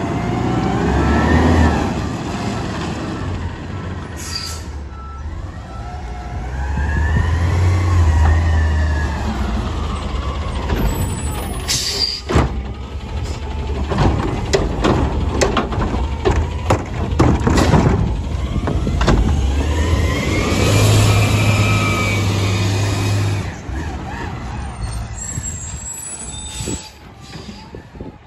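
Natural-gas McNeilus front-loader garbage truck with a Curotto-Can arm at work: the engine revs up under hydraulic load, with a hydraulic whine that rises and falls as the arm and forks move. In the middle comes a run of sharp clanks and bangs as the arm grabs the cart and dumps it into the hopper, then the whine and revving rise again.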